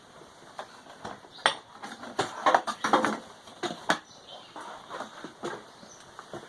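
Rubik's Cube being twisted by hand: a run of quick, irregular plastic clicks and clacks, busiest in the middle.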